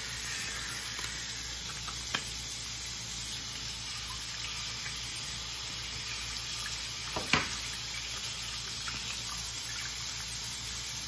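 Bathroom sink tap running steadily as wet hands are rinsed under it, with a few small clicks and one sharp knock about seven seconds in.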